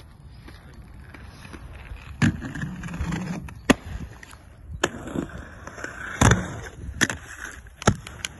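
Aggressive inline skates rolling on concrete, the wheel noise building from about two seconds in, with about six sharp clacks of the skates striking ramps and landing.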